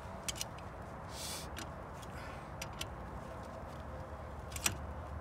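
A few sharp metal clicks and clinks, the loudest near the end, from pliers gripping and turning the spindle nut on a Dexter 5,200 lb trailer axle hub, tightening it hard to seat the freshly greased wheel bearings. A short hiss about a second in, over a steady low rumble.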